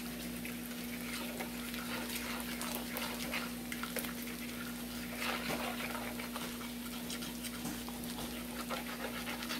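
Eggs being whisked in a bowl: quick, light scraping and clicking strokes that fall into a more even rhythm near the end. Under them is a frying pan's faint sizzle and a steady low hum.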